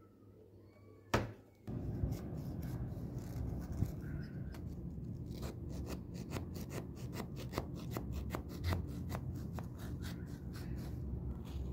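A knife cutting down through the crisp baked lattice crust of an apple pie, a run of small crunches, clicks and scrapes over a steady low rumble, after a single sharp knock about a second in.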